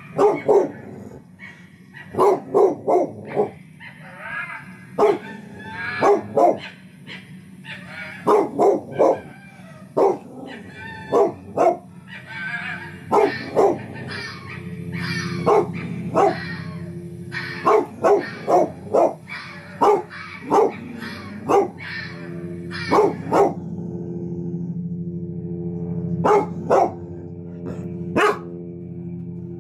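Dog barking over and over, in quick runs of one to four barks every couple of seconds. A steady low drone comes in about halfway underneath the barks.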